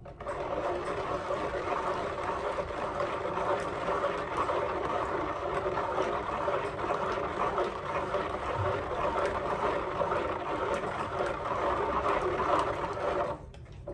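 Long-handled spoon stirring liquid homemade soap mixture of frying oil and lye with salt in a plastic bowl: a steady swishing and sloshing that cuts off suddenly near the end.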